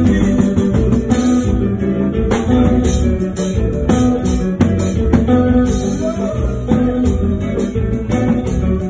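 Live kompa band playing: keyboard, electric bass and percussion over a steady, even beat, with a shaker-like rattle on top.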